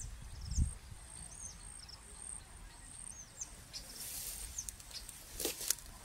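Small birds giving short, high chirps now and then over a steady, very high-pitched insect buzz that drops out about halfway through. There is low wind rumble on the microphone in the first second, and bursts of rustling hiss in the second half.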